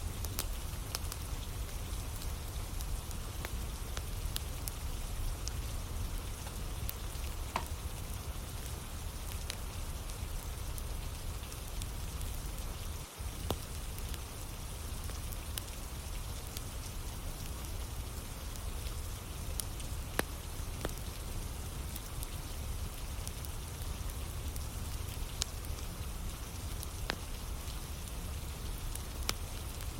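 Steady rain falling, with a wood fire crackling in scattered sharp pops.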